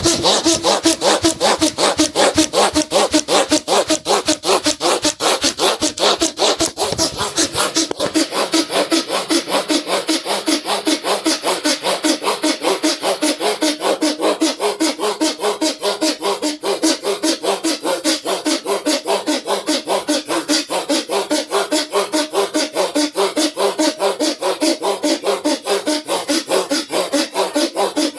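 Bhastrika pranayama: rapid, forceful breaths pumped in and out through the nose one after another in a fast, even rhythm, kept up without a break.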